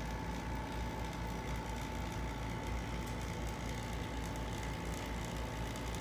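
Two-stage vacuum pump running steadily, a constant low drone with a faint steady whine above it, holding the chamber at vacuum while the electron discharge glows.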